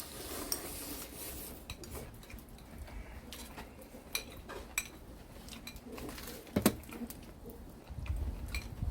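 Utensils clinking and tapping against dishes and pots during a meal: scattered light clicks, with one louder knock about two-thirds of the way through.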